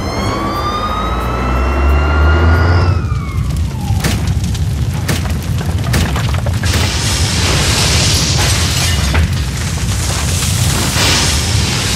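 Dramatic soundtrack of music and sound effects. A deep boom sits under a siren-like tone that rises slowly and then falls away over the first three or four seconds. After that comes a dense, crackling noise, matched to wildfire footage.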